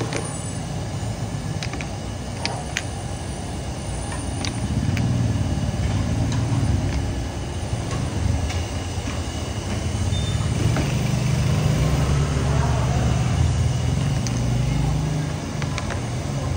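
Low rumble of street traffic that swells for several seconds and then eases off, with a few small sharp clicks as little custard cups are set down on plastic trays.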